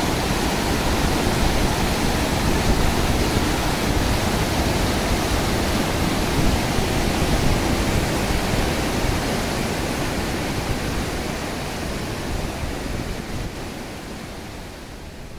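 Water rushing through the Meiji Yōsui headworks weir during a release, a steady loud roar, fading away over the last few seconds.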